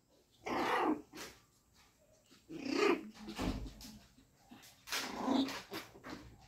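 Shih Tzu puppies growling and yapping at each other in play, in several short bursts, with a dull thump about halfway through.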